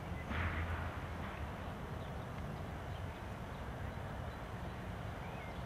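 Distant jet engines of a Boeing 757 on final approach, a steady low rumble. A brief louder rush of noise comes about half a second in.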